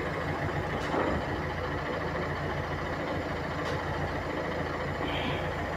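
Steady low mechanical rumble, engine-like, with a couple of faint light clicks, about a second in and near four seconds.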